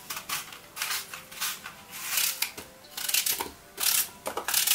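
A knife cutting pieces off a crisp apple by hand, in an uneven run of short crunches, with chunks dropping into a plastic blender cup.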